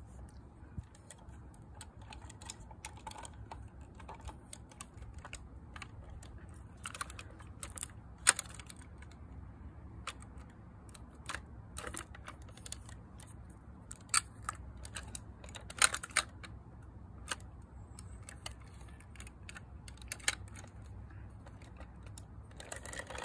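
First Gear model garbage truck's small plastic and die-cast parts clicking and clattering as they are worked by hand: irregular light clicks with a few sharper knocks, about 8, 14 and 16 seconds in.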